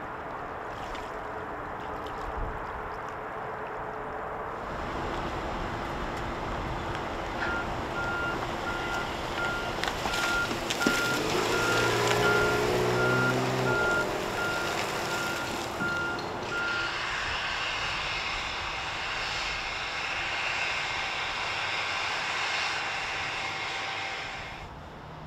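Steady rumble of vehicles and machinery, with a vehicle's reversing alarm beeping evenly for about ten seconds in the middle. A heavy engine's drone swells briefly under the beeps, and the background changes abruptly a few times.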